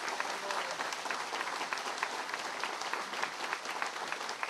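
Large crowd applauding: many hands clapping steadily.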